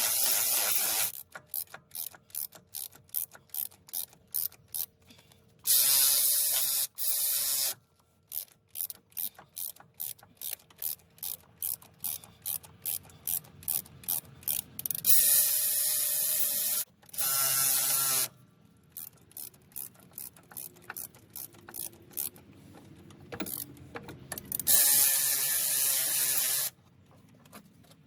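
Ratchet wrench clicking in steady runs of about two to three clicks a second as bolts are turned. Four times the clicking gives way to a louder hissing, whirring burst lasting a second or two.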